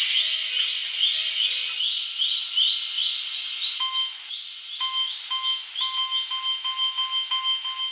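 Railroad level crossing warning bells ringing in steady repeated strokes, about two to three a second. About four seconds in, a different bell with a clearer, lower ring takes over.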